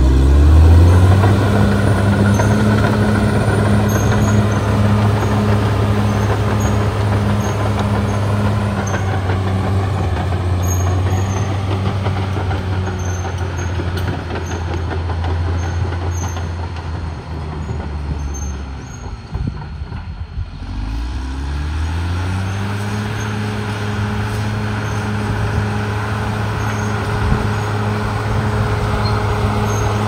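Caterpillar D6R XL bulldozer's diesel engine working hard at a steady high speed. About two-thirds through, it drops back toward idle for a couple of seconds, then revs up again and holds.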